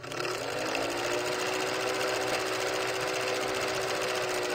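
Old film projector sound effect: the rapid, even clatter of film running through the projector, with a motor hum that rises slightly and settles in the first second.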